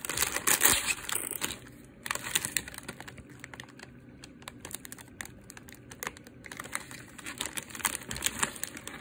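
Plastic Oreo cookie package crinkling and crackling as its resealable film is peeled open. The crackling is loudest in the first two seconds, then lighter rustling of the wrapper follows and thickens again near the end.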